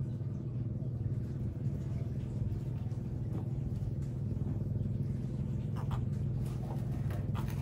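An engine running steadily with a low, even hum. A few faint clicks come near the end.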